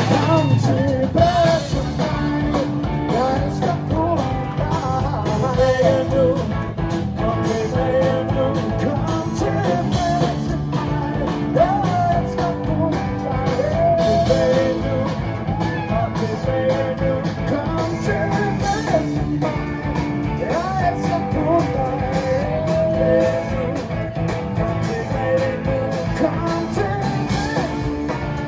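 Rock song with a singer and guitars, played by a live band.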